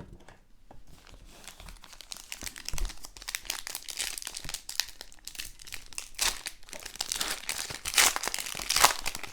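Plastic wrapping crinkling and tearing as a trading-card blaster box and its card packs are unwrapped, with sharper rips near the end.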